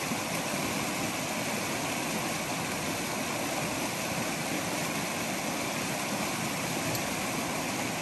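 Mountain river flowing steadily: an even, unbroken rush of running water.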